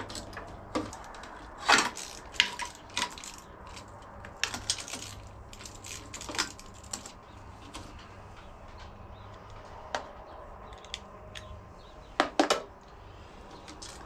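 Scattered small metal clicks and clinks of a nut, washer and wire terminal being handled on a riding lawn tractor's starter solenoid as the hot battery cable is moved to the new solenoid. The loudest clinks come about two seconds in and a quick cluster near the end.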